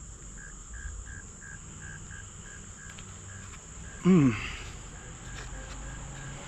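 Evening insect chorus: a steady high-pitched drone with a cricket chirping about three times a second. About four seconds in, a man lets out a short exclamation that falls in pitch.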